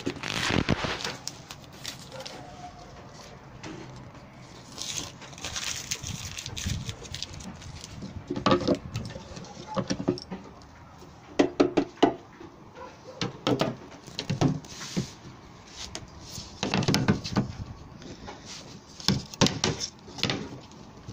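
Irregular knocks, clatters and scraping from stiff composite panel pieces being handled, pressed together and set down.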